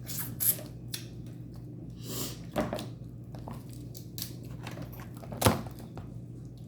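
Seafood boil shells being cracked and pulled apart by hand close to the microphone: scattered crackling snaps and wet tearing, with the loudest crack about five and a half seconds in.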